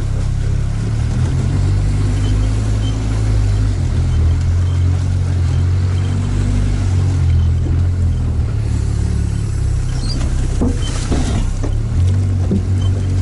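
Sherp all-terrain vehicle's diesel engine running steadily, heard from inside the cab, its pitch stepping up and down as it crawls over rough ground. From about ten seconds in, splashing and knocking as it wades into a boggy pool.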